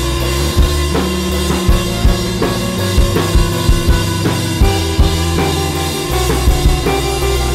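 Background music: a drum kit keeping a steady beat over low, sustained bass notes.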